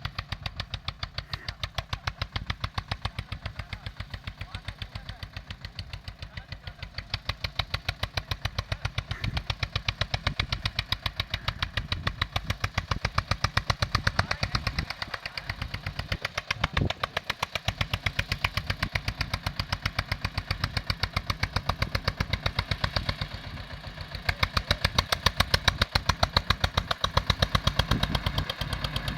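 Tractor engine running while ploughing, with a steady beat of about five firing pulses a second that gets louder for a while later on.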